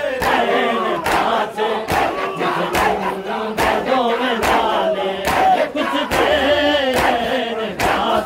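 A group of men chanting and shouting together in a noha lament over regular chest-beating (matam), hand slaps on chests at a steady beat of a little more than one a second.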